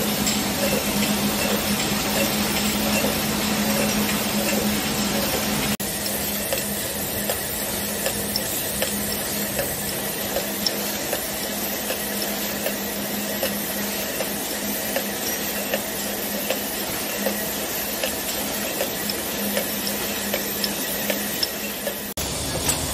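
Aluminium aerosol can printing line running: a steady machine hum with a constant scatter of light metallic clicks and clinks as cans move along the chain conveyor and onto the mandrels. About six seconds in the sound changes abruptly, the hum dropping and the clicks standing out more sharply.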